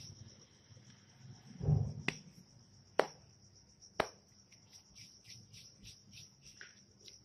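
Kitchen handling sounds as dough is divided and shaped by hand on a counter: a soft thump, three sharp clicks about a second apart, then a run of faint quick ticks. A steady high-pitched whine runs underneath throughout.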